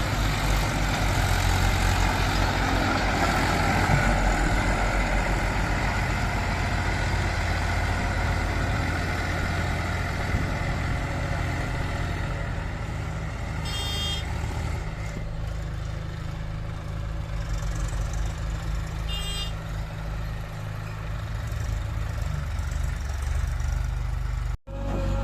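Heavy diesel engine of earth-moving machinery running steadily, louder in the first half. Two brief high-pitched sounds occur about 14 and 19 seconds in, and the sound cuts out for an instant near the end.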